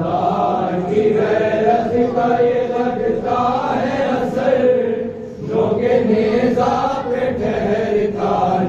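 Men's voices chanting an Urdu noha, a Shia mourning lament, through a microphone in long, slowly bending held phrases. There is a short break about five seconds in.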